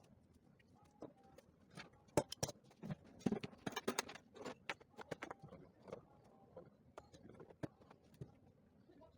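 Irregular clicks, taps and knocks of hard metal and plastic parts being handled and fitted together while a plastic-pipe welding iron is assembled, busiest a couple of seconds in.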